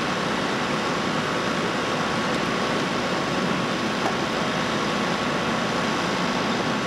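Engines running steadily: a continuous mechanical drone with a constant hum through it. It comes from the running power equipment and vehicles at a vehicle-extrication scene.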